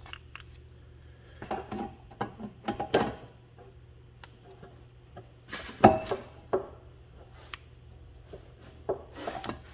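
Clinks and knocks of metal brake parts being handled as a freshly greased caliper slide pin is worked in its bore. The knocks come in clusters: a run of them between about one and a half and three seconds in, the loudest knock near six seconds, and a few more near the end.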